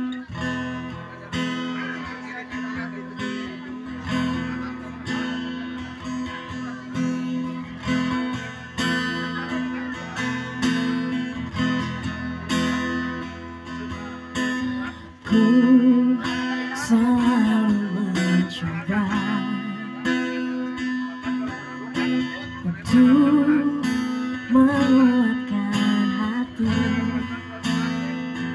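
Acoustic guitar strumming a slow song. About halfway in, a wavering melody line joins it.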